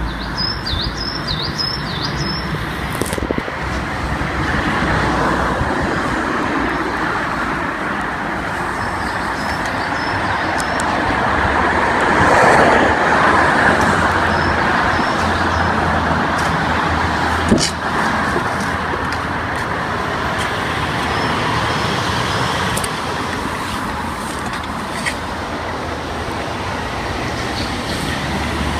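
Steady rush of passing road traffic, swelling as a louder vehicle goes by about twelve seconds in. A few short bird chirps come near the start, and there is one sharp click about eighteen seconds in.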